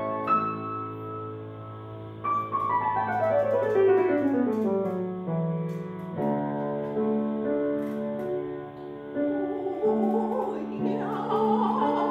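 Grand piano accompaniment playing an interlude: a long descending run of notes, then steady chords. About three-quarters of the way through, a woman's singing voice with a wavering vibrato joins over the piano.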